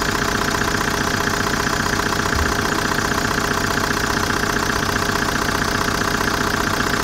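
Kia 2.9 CRDi (J3) four-cylinder common-rail turbodiesel idling steadily, with an even, rhythmic diesel clatter.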